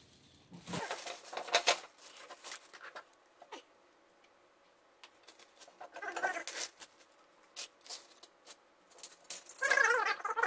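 Clear plastic wrapping rustling and crinkling as it is pulled off a metal ironing board, loudest in the first two seconds. Short squeaky pitched sounds come about six seconds in and again near the end.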